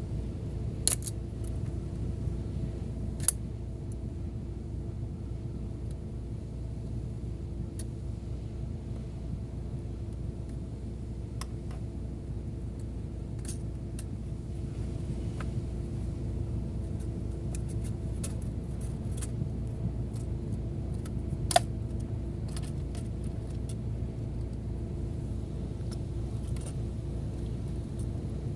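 Sharp metallic clicks and clinks of small metal parts and tools, scattered and irregular, the loudest about twenty-one seconds in. Under them runs a steady low mechanical hum.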